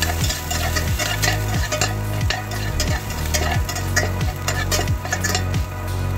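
Chopped garlic sizzling in oil in a stainless steel pan, stirred with a metal spatula that clicks and scrapes against the pan. Background music with a steady beat plays underneath.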